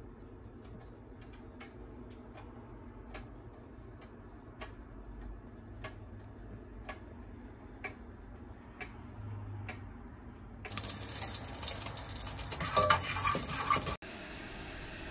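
Faint, irregular light ticks over a low hum, then about eleven seconds in a loud rush of water running from a kitchen tap for about three seconds. After a sudden cut, a steady hiss from a lidded pot simmering on the stove.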